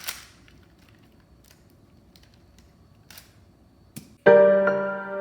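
A few light clicks in a quiet stretch, then piano music starts suddenly about four seconds in, with held chords.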